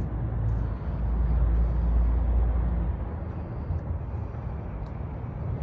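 Low, steady engine rumble of heavy vehicles or paving equipment, swelling about a second in and easing off around three seconds.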